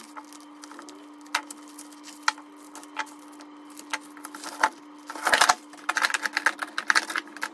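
Turkish 8mm Mauser cartridges on brass stripper clips clinking and clattering as they are pulled out of the bag and spread over the table: a few light clicks at first, then a dense metallic rattle from about five seconds in. A steady low hum runs underneath.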